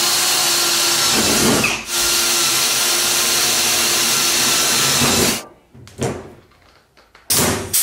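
Cordless battery drill running at speed, drilling rivet holes through a sheet-aluminium panel, with a brief let-off about two seconds in. It stops sharply about five seconds in, followed by two short bursts of noise near the end.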